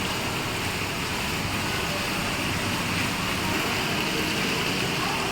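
Steady road traffic noise: a constant rumble and hiss with no distinct events.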